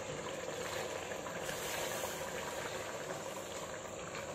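Mutton and tomato masala simmering in an open pressure cooker: a steady bubbling hiss.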